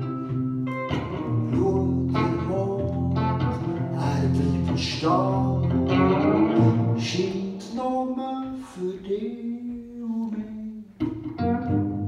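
Live music from a small duo: electric guitar playing a slow song, with a melody line carried over it.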